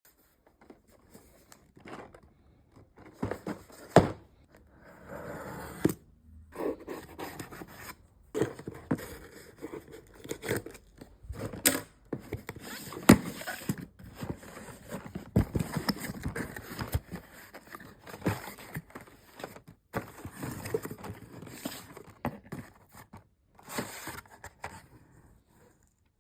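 Hands unboxing a package: cardboard and plastic packaging being cut, torn and handled, with irregular scrapes, rustles and sharp knocks.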